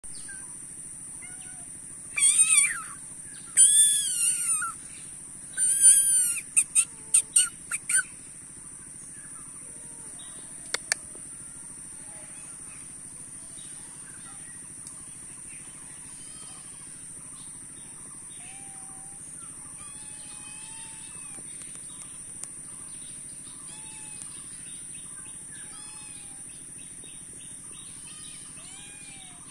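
Loud bird calls: a series of repeated arching notes over the first eight seconds, ending in several short sharp notes, then softer scattered chirps from other birds. A steady high insect drone runs underneath.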